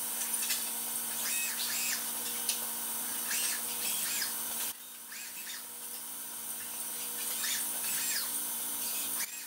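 Fanuc industrial robots' servo motors whining, the pitch rising and falling in short sweeps as the arms speed up and slow down, over a steady machine hum and hiss. The background level drops abruptly about halfway through.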